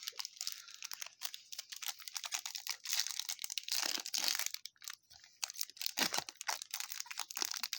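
Trading-card packaging being opened by hand: pack wrappers crinkling and tearing in irregular crackles, with a short pause about five seconds in.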